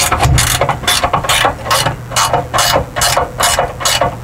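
Ratchet wrench being swung back and forth on a carriage bolt, a quick burst of ratchet clicks on each return stroke, several a second, as the bolt is backed out of a fifth wheel camper's landing gear leg.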